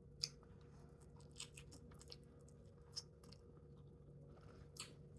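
Faint close-miked chewing, with a few short, wet mouth clicks about a second apart over a low steady hum.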